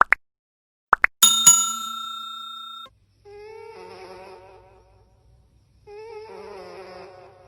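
Cartoon sound effects: two quick swishes, then a bright bell ding that rings for about a second and a half. After that comes a buzzing, wavering snore, twice, each lasting about two seconds.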